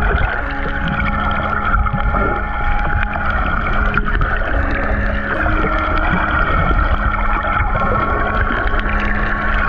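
Slow ambient background music of long held synth notes, changing pitch every second or two, over a steady low rumble and hiss.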